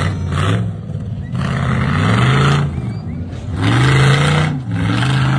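Off-road buggy's engine revving hard in two rising surges as it climbs a dirt slope, each surge with a loud hiss of noise.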